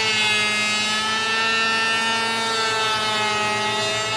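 Electric hand planer running at full speed with a steady, high-pitched whine as it is pushed across a walnut end-grain cutting board, shaving the surface level.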